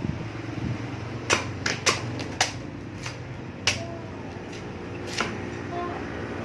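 About six or seven sharp, irregularly spaced knocks on an aromatic coconut, over a low steady hum.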